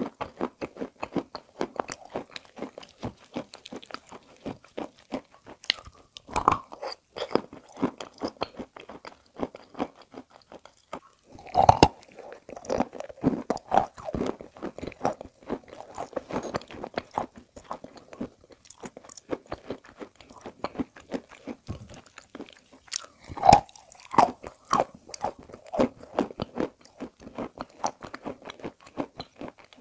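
Close-miked chewing of chalk dipped in wet edible clay paste: a steady run of crunching, crackling bites and wet mouth sounds, with two louder crunches about twelve and twenty-three seconds in.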